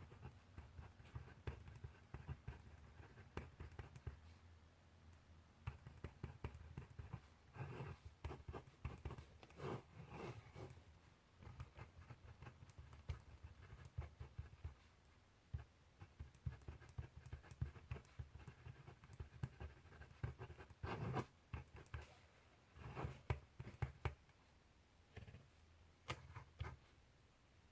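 Faint scratching of writing by hand on paper, in irregular short strokes and ticks that come in denser runs now and then.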